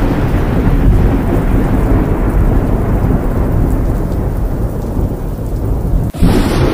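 Thunderstorm sound effect: thunder over steady heavy rain, with a deep rumble. It breaks off sharply about six seconds in, where a new sound takes over.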